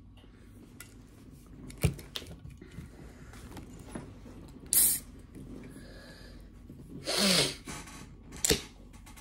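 Handling of a snack packet: a few sharp clicks and crinkles, with two short hissing bursts about five and seven seconds in.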